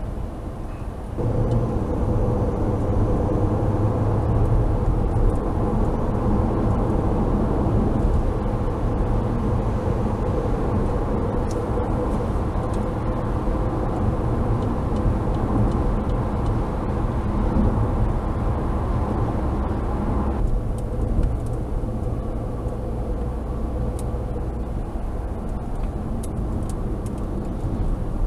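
Interior road noise of a 2011 Opel Astra J 1.6 turbo four-cylinder petrol car on the move, picked up by a windscreen-mounted dash cam's built-in microphone: steady engine hum and tyre rumble. The noise shifts abruptly about a second in and again about two-thirds of the way through.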